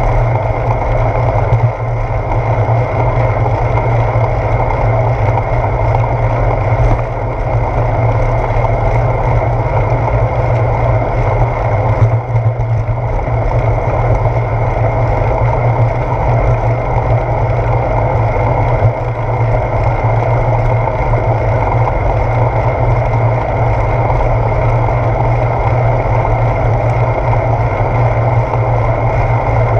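Steady wind and road rumble from a bicycle riding on wet pavement, picked up by a handlebar-mounted GoPro Hero 4.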